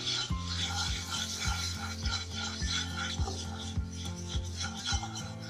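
Spoon or spatula stirring and scraping a butter-and-flour roux around a pan. Background music with a steady beat plays under it.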